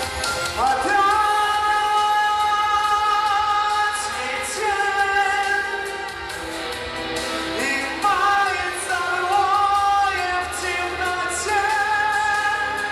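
A solo singer sings a slow melody with long-held notes, sliding between pitches, over instrumental accompaniment.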